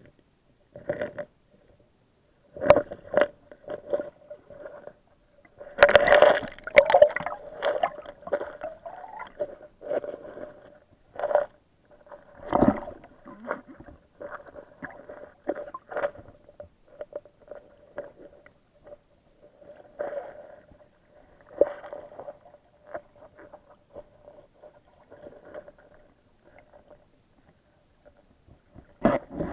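Camera housing recording underwater in shallow sea: irregular muffled knocks and bumps with swirls of water noise as it is moved through the water, loudest in a cluster about six seconds in, over a faint steady hum.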